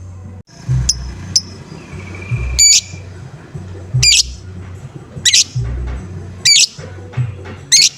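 Lovebird giving short, shrill 'ngoek' calls, repeated about every second and a quarter, over backing music with a steady low beat.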